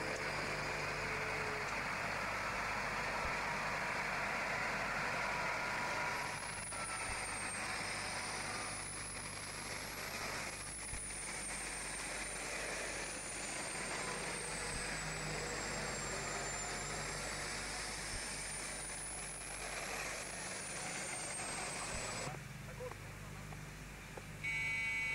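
Heavy military vehicles driving on a dirt track, seen one after another: an articulated tracked carrier, a six-wheeled cross-country truck and a Bandkanon 1 tracked self-propelled gun. A steady mix of engine and running noise.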